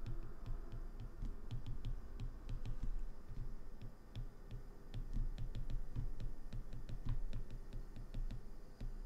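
A stylus tapping and scratching on an iPad's glass screen as words are handwritten: a quick, irregular run of light clicks with soft low knocks under them.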